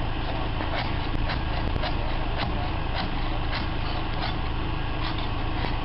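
Pressure washer running steadily, its engine drone under the hiss of the water spray, with scattered light clicks.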